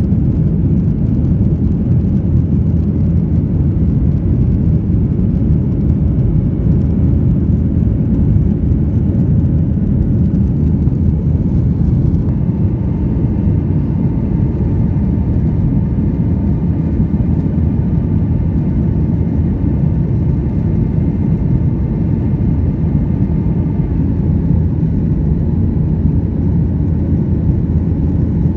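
Boeing 737-800 cabin noise: the steady, deep rumble of its CFM56 jet engines and the airflow, heard from inside the cabin. A faint higher hum joins about twelve seconds in and drops away again near the end.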